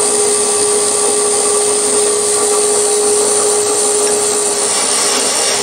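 Milling machine spindle running steadily with a spotting drill fitted, spotting a hole in an aluminium bracket; a steady tone holds over the motor's running noise.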